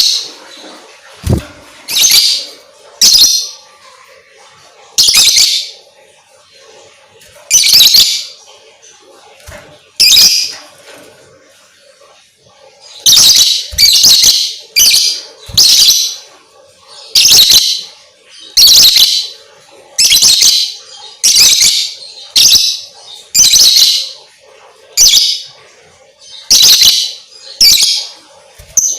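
Lovebird calling with a series of short, shrill chirps, each under half a second, at irregular gaps of one to two seconds, coming more regularly and faster from about halfway through.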